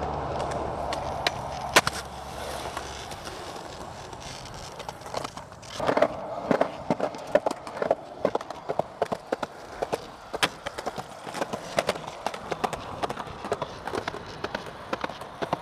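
Skateboard rolling on concrete, with a sharp knock about two seconds in. From about six seconds in comes a steady run of sharp clicks, two or three a second.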